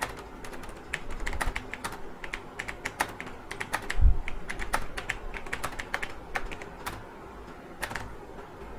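Typing on a computer keyboard: quick, irregular key clicks, several a second, with a low thump about four seconds in. The typing stops shortly before the end.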